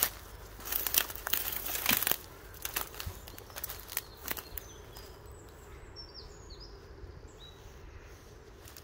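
Footsteps crunching and crackling through dry leaf litter, irregular steps in the first half that then stop. After that, a small bird gives several short, high chirps.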